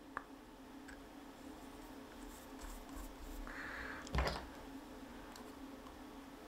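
Small metal airgun parts being handled and fitted back together: a light click near the start, a brief rub, then a knock about four seconds in, over a faint steady hum.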